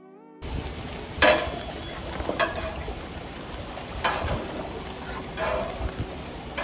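Hot dogs and hamburger patties sizzling on a gas grill, with a metal spatula scraping and clinking on the grates four times as the hot dogs are rolled.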